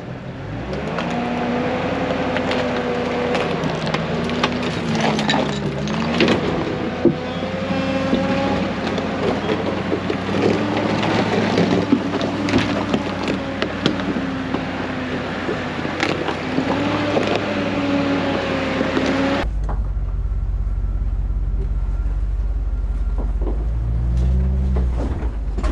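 Land Rover Discovery 2's engine working at low speed over rough rock, its pitch rising and falling with the throttle, with many sharp knocks and clicks. About three-quarters of the way through, the sound changes abruptly to a deeper, duller rumble, with a short rev near the end.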